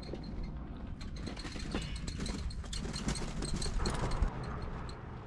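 Loaded touring bicycle being pushed over a rutted dirt track: its rear freewheel ticks steadily as the wheel rolls, with scattered crunching and clicking of tyres and feet on the loose gravel.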